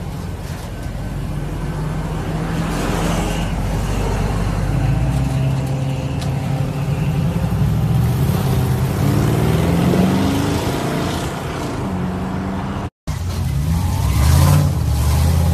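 An old pickup truck's engine running as the truck pulls away, its pitch rising as it accelerates about two-thirds of the way through. The sound cuts out for a moment near the end, and then a lifted Jeep Wrangler's engine runs, swelling briefly.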